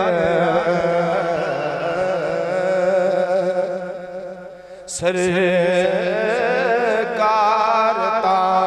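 A man's unaccompanied-sounding voice singing a Punjabi rubai (devotional quatrain) into a microphone in long, wavering held notes. The voice fades in a short pause about halfway, and a sharp click comes as the singing starts again.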